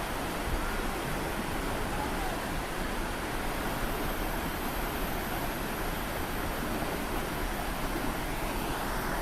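Steady rush of fast-flowing white water on a river, an even hiss with no distinct events; the upper hiss thins a little near the end.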